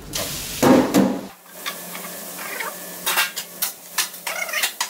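Sliced onions tipped into hot oil in a stainless steel commercial braising pan, sizzling and splattering most loudly about a second in. Then a metal spatula scrapes and clacks against the steel pan floor as the onions are stirred over a quieter sizzle.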